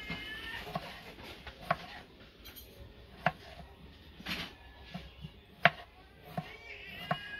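Kitchen knife slicing through raw potato and knocking down onto a wooden cutting board: about seven irregular chops, the sharpest about three and a half and five and a half seconds in.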